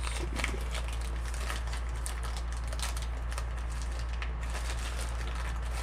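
Packaging rustling and crinkling with scattered small clicks and knocks as parts are unpacked and handled, over a steady low hum.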